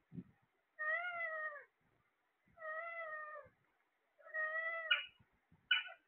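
Caged Alexandrine parakeets calling: three drawn-out, evenly pitched calls under a second each, then two short sharp squawks near the end.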